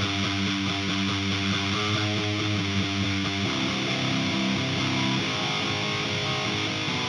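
Heavily distorted electric guitar playing a metal rhythm part through the Audio Assault Bulldozer amp simulator plugin's rhythm tone. It holds one chord pattern, then shifts to new notes about three and a half seconds in and again about five seconds in.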